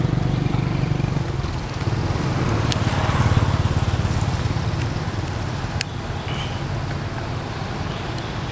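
A small engine running steadily, a little louder about three seconds in, with two faint clicks.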